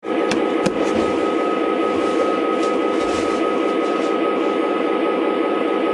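O gauge model train rolling along its track, heard from a camera riding in a gondola car: a steady rumbling whir with a thin steady whine above it, and a couple of sharp clicks near the start.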